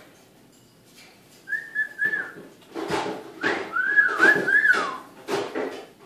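Male eclectus parrot whistling and chattering: three short whistled notes about a second and a half in, then rougher chatter and a run of arched whistles that rise and fall, around four seconds in.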